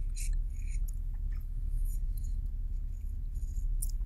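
Faint wet smacking and slurping of a mouth sucking the juice out of an opened orange, as small scattered clicks over a steady low hum.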